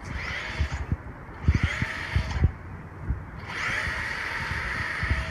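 Traxxas X-Maxx RC truck driving in short full-throttle bursts, its electric motor and drivetrain whining with each burst, about three times, against low knocks and crunching from the tyres. The differential runs with its seized ring-gear-side bearing replaced.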